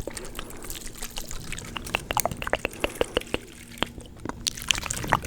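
Water in a small jar being sloshed and poured, with many short, irregular drips and plops.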